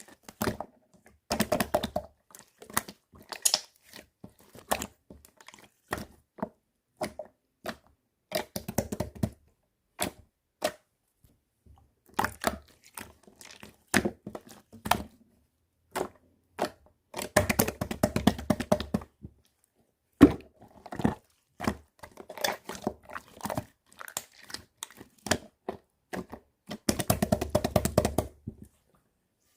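Slime being squished and pressed by hand, making irregular sharp clicking and popping crackles, with denser runs of crackling about two-thirds of the way through and again near the end.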